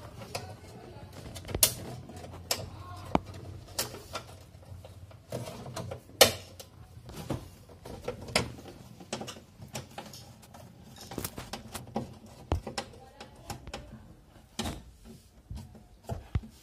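Irregular clicks, taps and knocks of a screwdriver and hands working on the plastic liner and metal evaporator plate inside a refrigerator's freezer compartment. A low murmur runs underneath.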